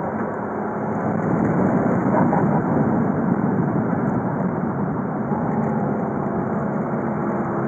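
VW Golf V 2.0 TDI (BKD four-cylinder diesel) driving at a steady pace: a dense, even mix of engine and road noise with no revving. A faint steady tone joins in near the end.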